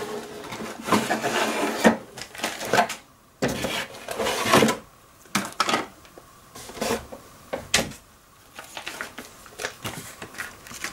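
Plastic-bagged sprues and instruction sheets of a plastic model kit being lifted out of the cardboard box and handled: irregular crinkling and rustling of plastic bags with a few sharp clicks.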